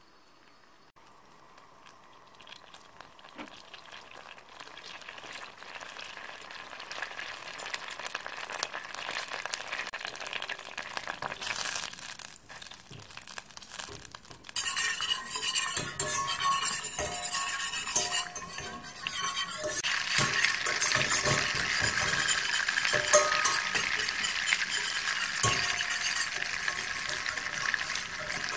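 Unsalted butter sizzling and foaming in a stainless steel saucepan over a gas flame while a wire whisk stirs it, the stage of cooking it down into brown (hazelnut) butter. It starts faint as the butter begins to melt, grows steadily, and jumps louder about halfway through as the butter foams.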